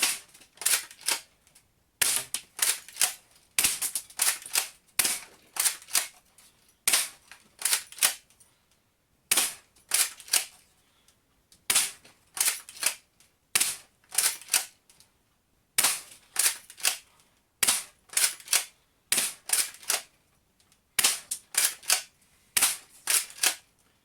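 Spring-powered Tokyo Marui Walther MPL airsoft gun being cocked and fired again and again: a quick cluster of sharp clicks and snaps every one to two seconds.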